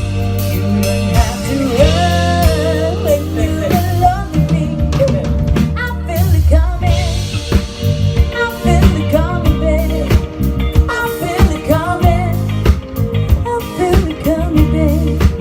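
Live band playing a song: a voice singing over a drum kit and bass.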